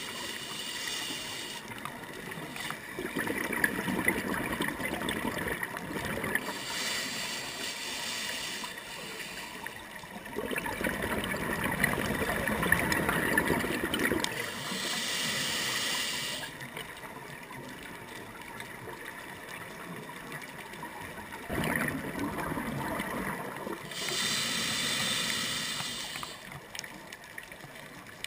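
A scuba diver breathing underwater through a regulator: a hiss on each inhale and a bubbling gurgle on each exhale, repeating about every eight seconds.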